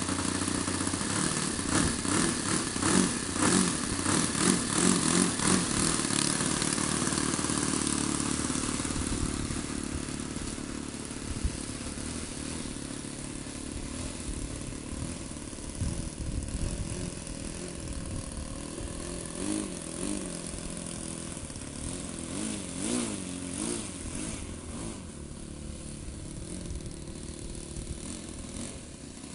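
Model airplane's Super Magnum XL four-stroke glow engine running, its throttle opened and closed in pulses for the first several seconds. The engine then runs lower and grows fainter as the plane taxis away across the grass, its pitch rising and falling with the throttle.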